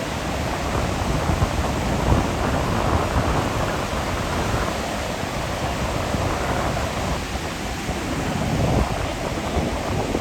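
Heavy ocean waves breaking: a continuous rush of noise with a deep, uneven rumble underneath.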